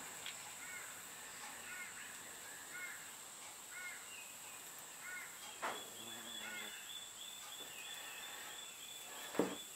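Two sharp clicks of hand snips closing on a lead ball sinker, about six and nine seconds in, the second the louder. Behind them faint bird chirps repeat roughly once a second, and a thin steady high tone comes in for the second half.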